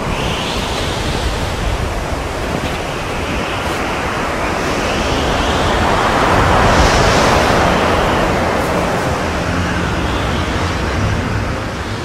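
Blizzard wind blowing hard with driven snow, a steady rushing noise that swells to its loudest about halfway through and eases off near the end.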